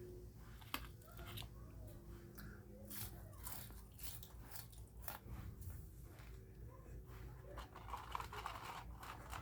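Close-up eating sounds: a person chewing and biting crunchy food, a scatter of short crunching clicks throughout.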